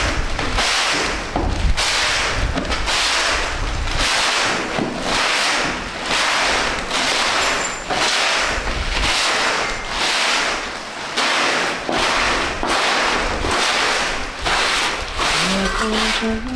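Soft grass broom sweeping grit across a rough concrete floor, about one swishing stroke a second.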